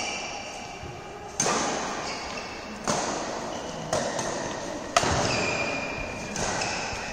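Badminton rackets hitting a shuttlecock in a rally, five sharp hits roughly a second to a second and a half apart, each ringing on in the echo of a large hall.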